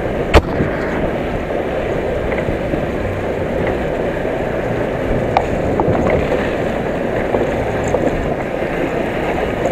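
Steady wind rush on the microphone mixed with the engine and road noise of an Aprilia SXR 160 scooter riding at low speed on a rough road, with a sharp click about half a second in.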